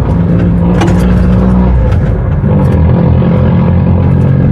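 Beccar Urbus city bus engine running loudly with a steady low note that dips and shifts in pitch about two seconds in.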